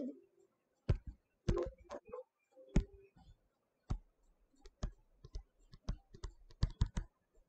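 Irregular sharp clicks and taps of a stylus on a tablet screen during handwriting, coming more densely in the second half.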